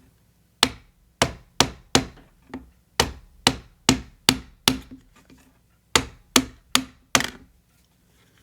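Sharp taps on wood, about fifteen in three quick runs, as the wooden pieces of a book nook kit are knocked into place.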